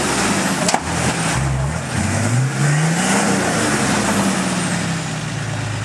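Four-wheel-drive ute's engine revving up and easing off twice as it works through a deep muddy rut, then settling to a steady lower note near the end. A single sharp knock about a second in.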